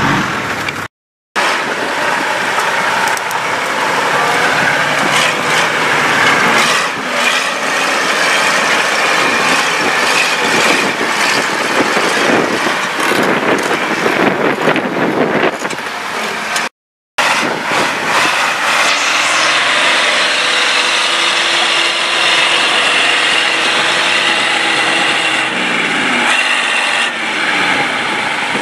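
Diesel off-road vehicle engine running hard over rough terrain, with a steady engine note in the second half that drops near the end. The sound cuts out briefly twice.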